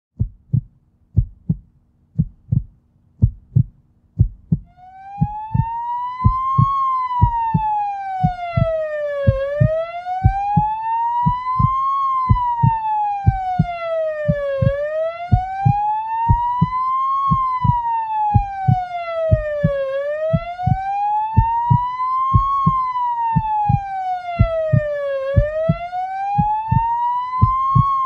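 Heartbeat, regular lub-dub double thumps about once a second. From about four seconds in, an ambulance siren joins it: a slow wail rising and falling, one full cycle every five seconds or so.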